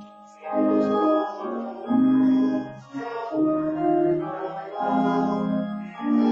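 Organ playing a slow hymn tune in sustained chords, the notes held steady and changing about once a second.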